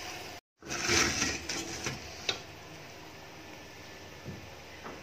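Aluminium cooking pot being handled on a gas stove: a short stretch of metal scraping and clattering, a sharp click a little after two seconds, and a soft knock near the end, over a faint steady hiss.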